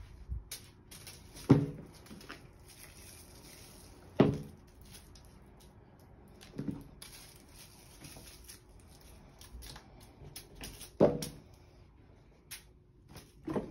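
Crinkly wand toy rustling and crackling as a cat plays with it, broken by five short, loud, low-pitched sounds a few seconds apart.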